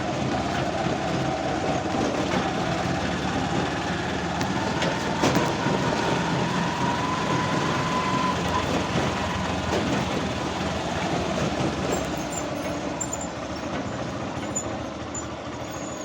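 A moving vehicle, steady running and rumbling noise with a faint whine that slowly rises in pitch, then eases off in the second half.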